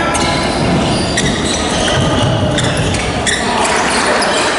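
Basketball game noise in a large gymnasium: players running on the hardwood court, with a few sharp knocks over the steady hubbub of the hall.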